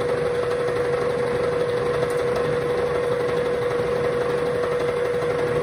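Vertical milling machine with an end mill cutting along an aluminium bar, milling it thinner: a steady cutting noise with a steady whine through it.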